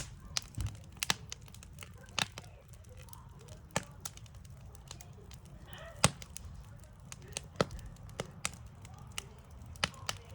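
Backyard wood fire crackling, with irregular sharp pops, the loudest about six seconds in, over a low steady background rumble.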